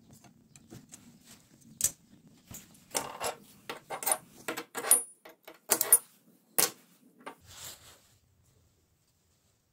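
Short lengths of steel rebar and a steel ruler being handled on a workbench: a string of metallic clinks and knocks, a few with a brief high ring, mostly between about two and seven seconds in.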